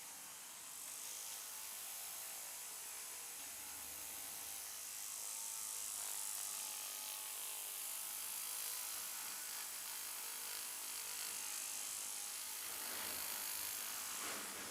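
Hands massaging a head: a soft rustle of palms and fingers rubbing over hair and scalp, swelling and easing with the strokes.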